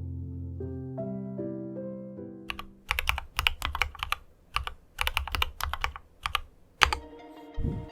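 Soft background music with piano-like notes, then about four seconds of fast, irregular typing on an IQUNIX F96 mechanical keyboard with Cherry MX Brown switches, the keys clacking in quick runs. The music comes back near the end.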